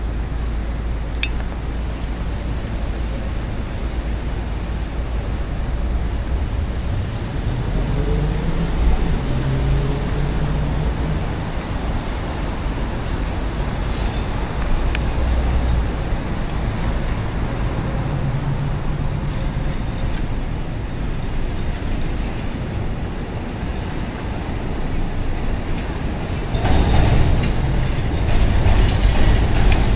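CTA Brown Line elevated train approaching over steady city traffic noise. Its wheel-and-rail noise grows louder in the last few seconds as it comes close and enters the station.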